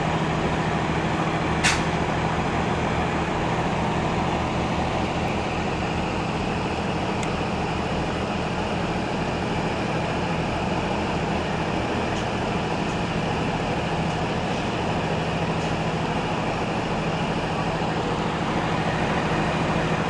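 Several racing trucks' diesel engines idling together, a steady low drone with a constant low tone. A single brief, sharp hiss cuts in about two seconds in.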